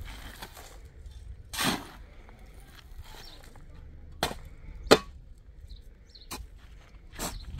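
A steel shovel scraping into stony dry earth and tipping loads of dirt and gravel into a metal wheelbarrow: five sharp scrapes and clanks at uneven intervals, the loudest about five seconds in.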